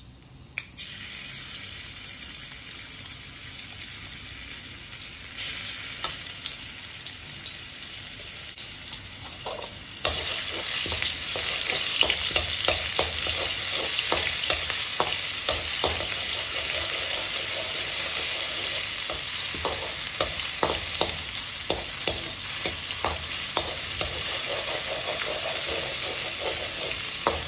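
Ginger-garlic paste sizzling in hot oil in a metal kadai, stirred with a steel spatula that scrapes and taps the pan, at the stage of frying off the paste's raw smell. The sizzle starts as the paste goes in and grows louder about ten seconds in.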